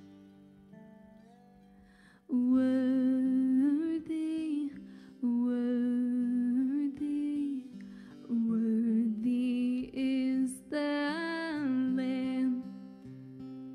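A young woman singing long, held notes in several phrases over acoustic guitar accompaniment. For the first two seconds only the soft guitar is heard, then her voice comes in strongly.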